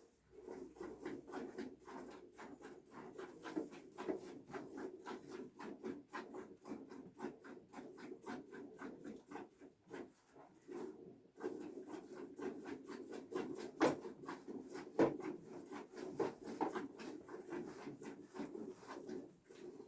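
Rapid, steady rhythm of rubbing strokes, about three a second, with two louder knocks about two-thirds of the way through.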